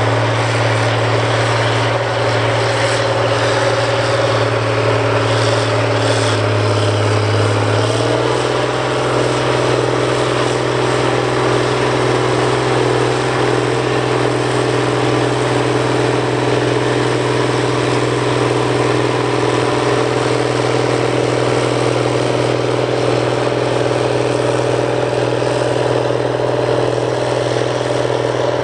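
International 4186 four-wheel-drive tractor's turbocharged diesel engine running steadily under load as it pulls a field cultivator through tilled soil. Its engine note shifts slightly about eight seconds in.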